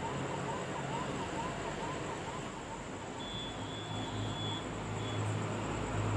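A faint siren wailing in quick up-and-down sweeps, fading out after about two and a half seconds, over steady room noise with a low hum that grows louder near the end.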